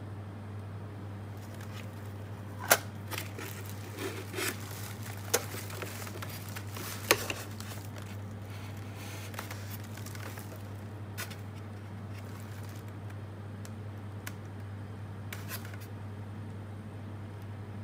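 Sharp clicks and knocks from a plastic LED magnifier lamp being handled and adjusted, the loudest about 3 and 7 seconds in and fainter ones later, with light rustling, over a steady low hum.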